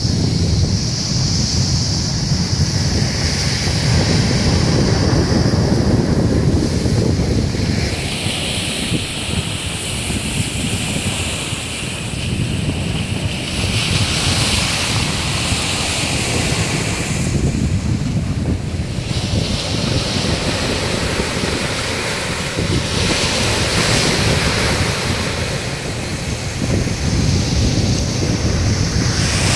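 Rough sea surf breaking and washing up a sandy beach among rocks: a continuous rush that swells and eases as each wave comes in. Wind rumbles on the microphone.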